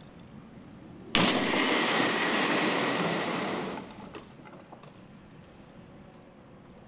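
Crash test of a small helicopter fuselage dropped on cables: about a second in it hits the concrete with a sudden loud crash. Loud crunching and scraping follows for about two and a half seconds, then dies away.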